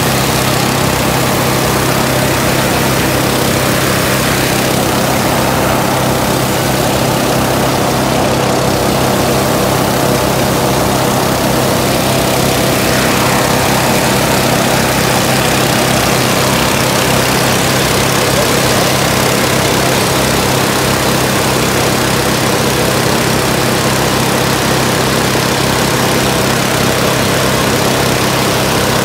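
Hot-air balloon burner firing into the envelope during inflation, a steady roar with no breaks, over a constant engine-like hum.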